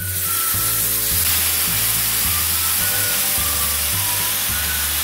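Water poured into a hot oiled pan of fried onion and spice masala, setting off a loud, steady sizzle that starts abruptly as it hits, while it is stirred. Background music with a repeating bass line plays under it.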